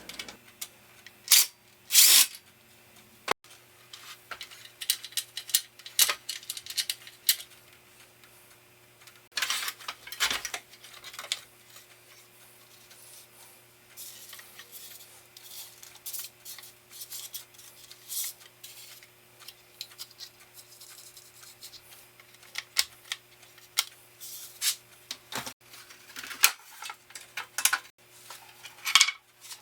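Scattered clicks and knocks of a screwdriver and metal parts being handled as the band saw's motor is unscrewed and taken out, over a faint steady hum.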